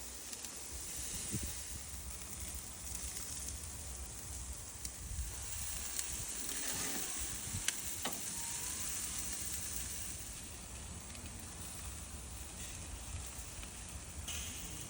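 Food sizzling on a barbecue grill: a steady hiss with a few sharp pops about six and eight seconds in.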